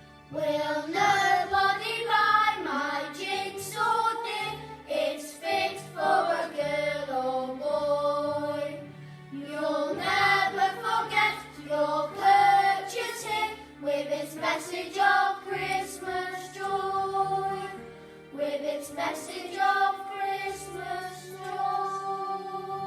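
Children's choir singing a song together over instrumental accompaniment.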